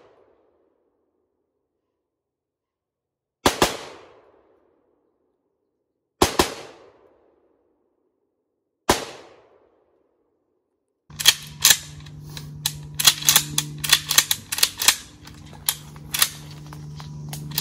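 AR-15 rifle firing single shots, three about two and a half to three seconds apart, each followed by a short fading echo. About eleven seconds in this gives way to a busy run of clicks and knocks over a steady low hum.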